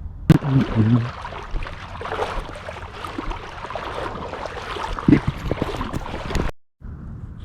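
Water swishing around an angler's waders in a thigh-deep river, with wind buffeting the microphone and a few low thumps. The sound cuts off suddenly about six and a half seconds in.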